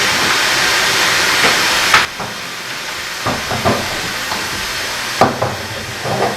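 Wallpaper steamer's steam hissing through plastic barrier pipe, dropping suddenly about two seconds in to a lighter hiss, with a few knocks and clicks after.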